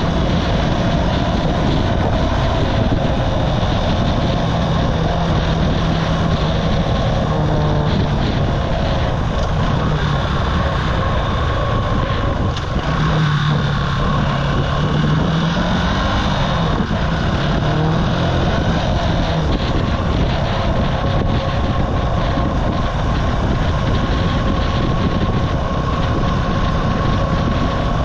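The Archive Motor AM60's buzzy 125cc engine running as the motorcycle rides along, with wind buffeting the microphone. About halfway through, the engine sound briefly drops, then its pitch climbs again as it pulls.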